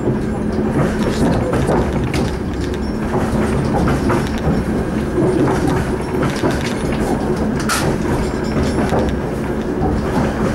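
A suburban passenger train running at speed, heard from inside the carriage: a steady rumble of wheels on rails with a low hum and scattered sharp clicks of the wheels over the track.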